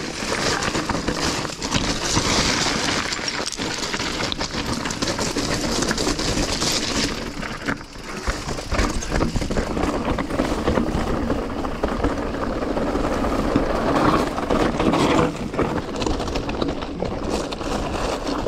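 Mountain bike riding down a rocky, dusty trail: tyres running over loose stones, with the bike rattling and many small knocks throughout.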